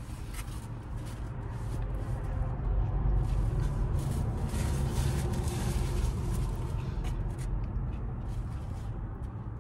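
A vehicle passing outside a parked car, heard through the cabin as a swell of road noise that builds and fades over several seconds above a steady low rumble. A paper wrapper rustles lightly with a few faint crinkles.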